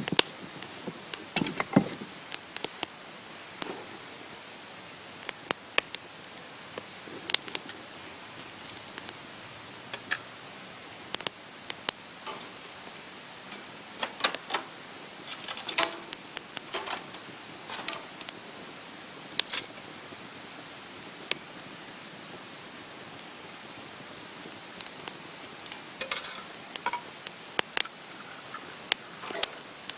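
Wood campfire crackling: irregular sharp pops and snaps, a few at a time, over a faint steady hiss.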